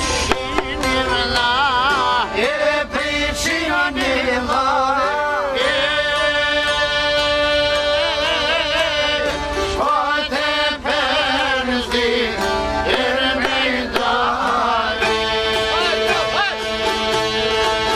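Live Albanian folk music from an ensemble of accordion and long-necked çifteli lutes: a heavily ornamented melody line with wide vibrato over sustained accordion chords.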